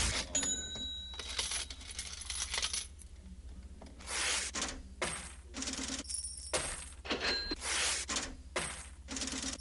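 A sparse, irregular run of short metallic clinks and jingles, some with a brief ringing tone, over a steady low hum.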